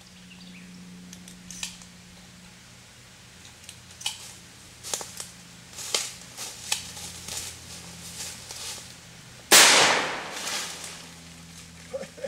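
A single 12-gauge shotgun blast from a Benelli Super 90 semi-automatic, fired up into tree limbs about three-quarters of the way in and ringing out for over a second. Before it comes a run of sharp clicks as the shotgun is handled.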